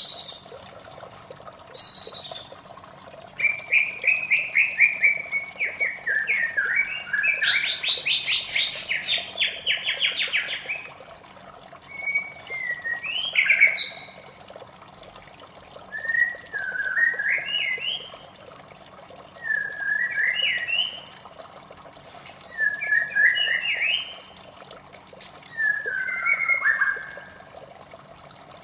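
White-rumped shama singing: a long run of rapid, varied warbling phrases a few seconds in, then short whistled phrases every two to three seconds, over a steady rush of running water.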